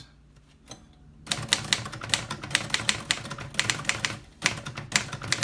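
A 1955 Royal Quiet Deluxe manual typewriter being typed on quickly, its keys striking several times a second in a long run, with a short break near the end, the touch control set to its hardest setting. It is quiet for about the first second.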